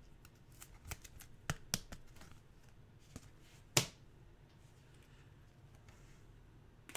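Trading cards being handled one by one: a few short clicks and taps as cards are flipped and set down, the loudest a little under four seconds in.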